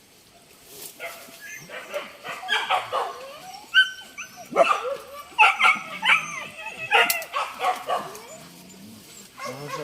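Pack of hunting dogs yelping and baying excitedly in quick, high calls that rise and fall in pitch, starting about a second in.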